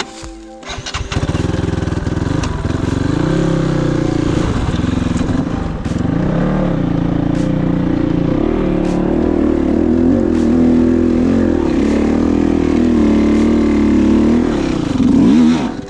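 Kovi 450i Pro enduro motorcycle's single-cylinder engine running under throttle, its pitch rising and falling as the rider works the throttle. It is loudest with a rev near the end, then drops away.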